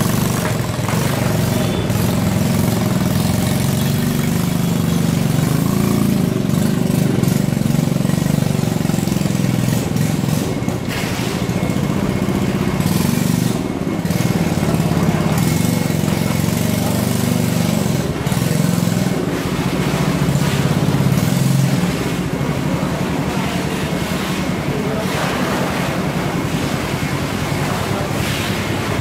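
A vehicle engine running steadily with a low hum, easing off a little after about twenty seconds, with a few knocks over it.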